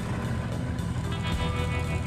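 Background instrumental music with sustained tones over a deep, steady low rumble.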